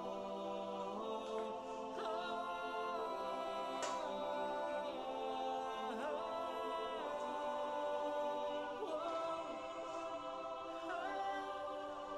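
Background music: layered held notes that shift together every second or two.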